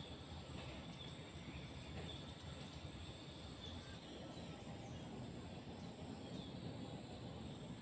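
Faint outdoor ambience: a steady high insect drone, a bird chirping briefly every second or so, and a low steady rumble underneath.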